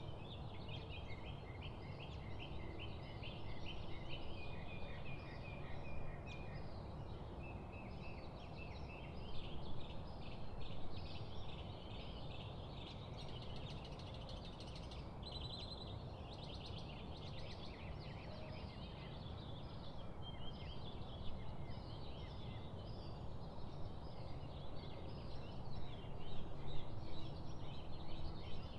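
Many birds calling and singing at once, a dense chorus of chirps and trills, over a steady low background noise.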